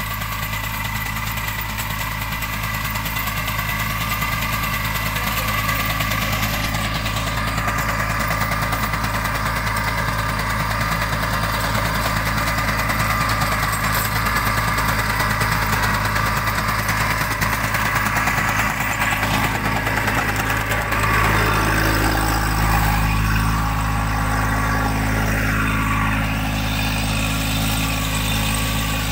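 Kubota Neostar A211N mini tractor's small three-cylinder diesel engine running steadily under load while it pulls a rotavator through the soil, growing a little louder about two-thirds of the way through.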